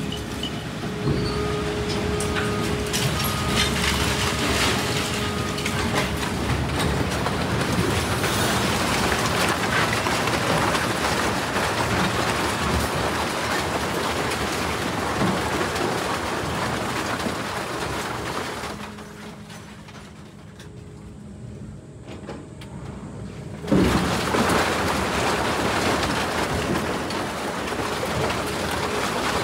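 Industrial scrap-metal shredder running, a dense, steady clatter and rumble of steel scrap going through it. About two-thirds of the way in it falls much quieter for some five seconds, then comes back in with a sudden loud crash.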